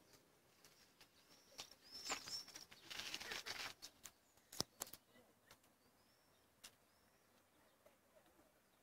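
Short, high bird chirps, a few in the first two and a half seconds and again around six seconds, over faint rustling and a few sharp clicks, the loudest click about halfway through.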